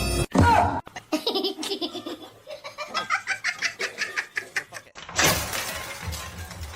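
A person laughing hard in a quick run of repeated bursts for about four seconds, after a short loud cry that falls in pitch at the start. A noisy rush of sound cuts in about five seconds in.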